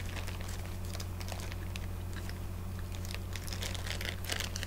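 Someone chewing a mouthful of soft apple fritter bread, a run of small irregular clicks, with the plastic bag around the loaf rustling as a piece is pulled off near the end. A steady low hum sits underneath.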